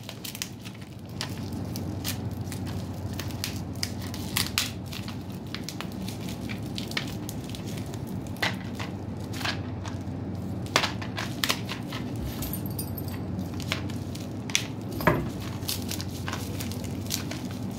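Plastic bubble wrap crinkling and crackling in the hands as a small package is unwrapped, with irregular sharp crackles throughout.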